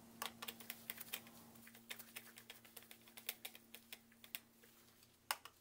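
Faint, irregular light metallic clicks as a nut driver runs down and tightens the small terminal nuts on an ignition coil's posts, with two last clicks near the end.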